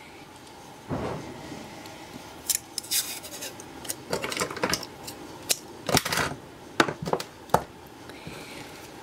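Amber polyimide (Kapton-type) tape being pulled off its roll and cut into strips: a scattered run of short, sharp rips and snips.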